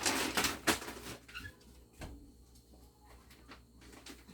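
Rustling and a few sharp clicks for about the first second, then quieter scattered light knocks: food packages being handled and put into a freezer.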